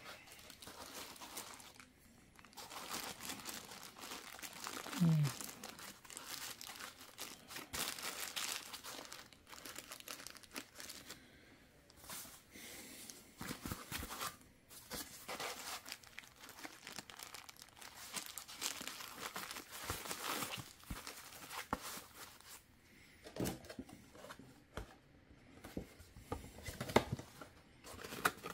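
Plastic packing bags crinkling and foam inserts and cardboard boxes rubbing and scraping in irregular bursts as collectible figurines are packed back into their boxes.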